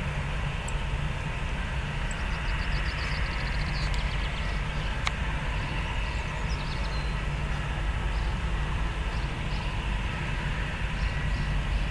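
Steady low engine rumble with a faint hiss above it, and one sharp click about five seconds in.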